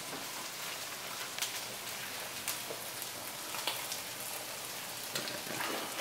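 Steady sizzle of sausage and onions frying in a skillet, with a few faint pops.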